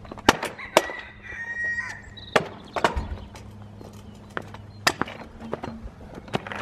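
Stunt kick scooter clattering: a string of sharp knocks and clacks as the scooter's deck and wheels strike the asphalt and a small grind box during tricks, with short stretches of wheels rolling in between.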